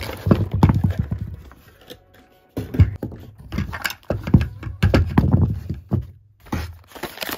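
A cardboard packaging insert and the hard plastic parts of a toy jeep being handled and set down on a table: an irregular run of clicks, knocks and scrapes, with two short pauses.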